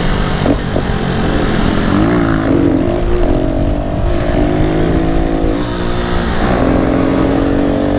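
Honda Pop 110i's single-cylinder four-stroke engine with a tin straight-through exhaust, running loudly under throttle while riding. Its pitch wavers, then dips twice in the second half as the throttle is eased and opened again.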